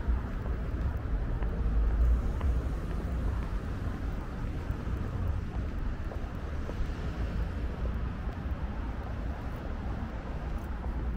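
Outdoor city-street noise: a steady low rumble of road traffic, a little heavier in the first couple of seconds.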